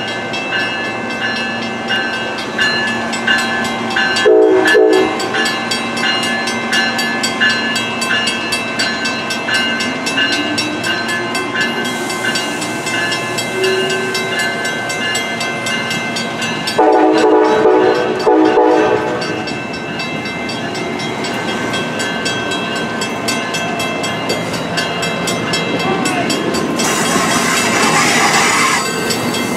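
Amtrak Northeast Regional train of Amfleet coaches rolling past, wheels clattering over the rails, with steady high-pitched ringing tones throughout. A train horn sounds a short blast about four seconds in and a longer, broken blast about seventeen seconds in.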